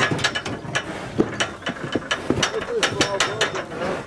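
Steel cattle crush rattling and clanking, a quick run of sharp metal knocks, as a cow held in its head yoke shifts and is let out.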